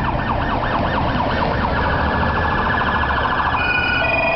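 Police car siren wailing in quick rising and falling yelps, switching about a second and a half in to a faster warble that cuts off about three and a half seconds in, followed by steady electronic tones.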